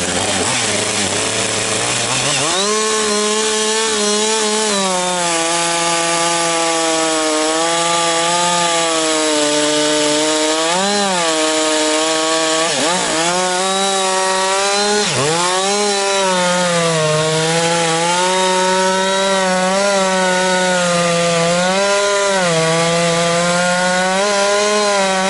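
Large gas chainsaw revved up from idle about two seconds in and held at high speed while cutting a round off a thick white pine log. The engine pitch sags briefly a few times as the bar bites under load, then recovers.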